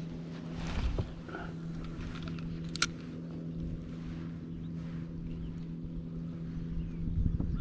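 Boat motor running with a steady, even hum, under a low rumble; a sharp click sounds about three seconds in.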